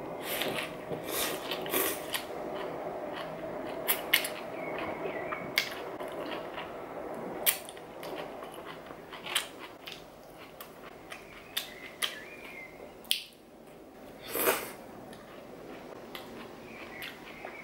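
A mouth chewing a doner wrap with fries, picked up close, with many short sharp clicks through the chewing and a fuller, steadier stretch in the first several seconds.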